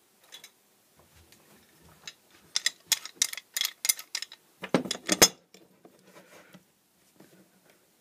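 Small metal vise being handled: a quick run of sharp metallic clicks and rattles, then two or three heavier knocks as it is set down on the bench about five seconds in.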